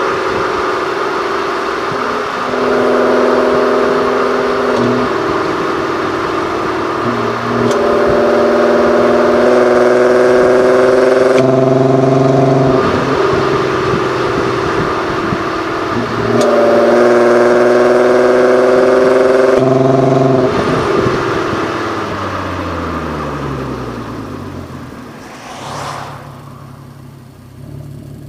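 Audi TT 8N 3.2's VR6 engine through an exhaust with a 200-cell sports catalytic converter, running under load. Its pitch holds steady, then jumps up or down several times as the revs change. Near the end the revs fall away and the sound fades.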